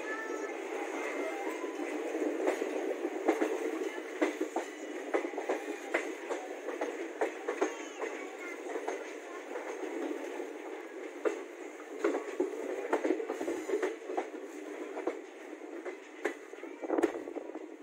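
Passenger train coaches rolling out over station points and rail joints: a steady running rumble with frequent irregular clicks and knocks from the wheels.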